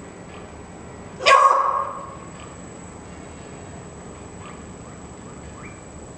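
An animal's single sharp, bark-like call about a second in, followed by several faint, short chirps.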